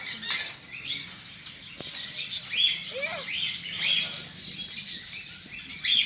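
A flock of caged birds chirping, with many short high calls overlapping and rising and falling in pitch.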